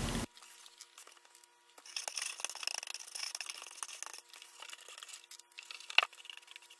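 Faint irregular scratching and rustling with small clicks, and one sharper click about six seconds in, over a faint steady electrical whine.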